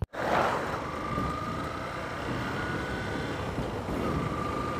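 Yamaha FZ-S V2 motorcycle's single-cylinder engine running steadily while riding at low road speed, heard from the rider's position with wind rushing over the microphone and a faint steady high whine.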